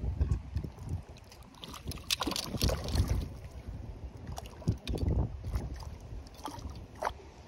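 Wind rumbling on the microphone, with irregular knocks and splashy rustles of handling near the water.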